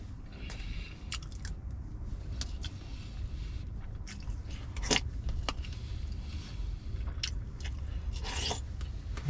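Metal spoon clicking and scraping in a plastic food container, with chewing. A steady low rumble runs underneath. The sharpest click comes about five seconds in, and a short scrape comes near the end.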